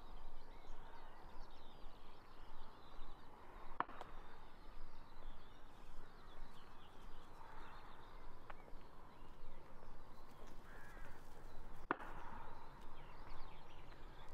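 Footsteps walking along a countryside path, with birds singing all around and a crow cawing. Two sharp clicks stand out, about eight seconds apart.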